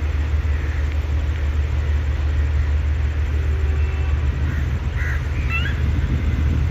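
Steady low rumble with crows cawing, a few calls about five seconds in.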